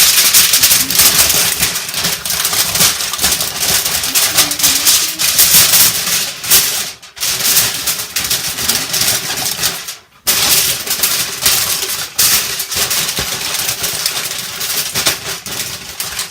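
Aluminium foil crinkling and rustling loudly as it is handled and pressed over a roasting turkey, with two brief pauses partway through.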